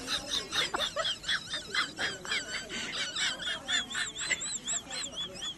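Birds chirping: many short, high calls, several a second, each rising and falling in pitch, some overlapping.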